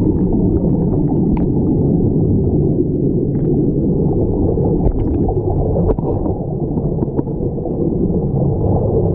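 Muffled underwater rumble of water and streaming air bubbles from a diving helmet, as heard by a submerged camera. It is steady throughout, with a few faint scattered clicks.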